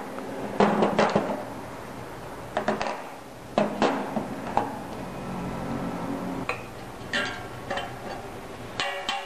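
Ball-peen hammer striking metal on the axle of a Novatec Speedy rear hub, knocking a hub bearing out. There is a quick run of blows in the first second, a few scattered blows through the middle, and a steady series of taps begins near the end as a steel shaft is driven against the opposite bearing.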